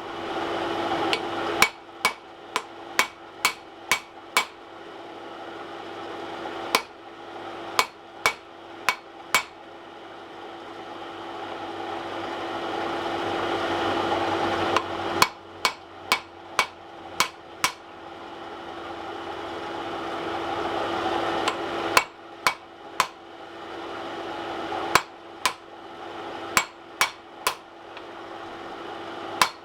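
Hand hammer striking hot steel on an anvil in short runs of blows, about two to three a second, straightening a forged tool. Between the runs a steady rushing noise swells.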